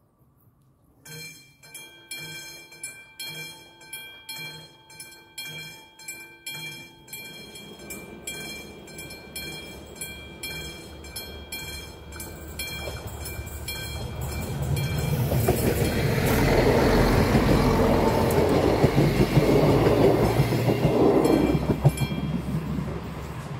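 Level-crossing warning bell of the classic type starts striking about a second in, about two strikes a second. Then a diesel railcar approaches and runs over the crossing, its engine and wheels rumbling loudest near the end.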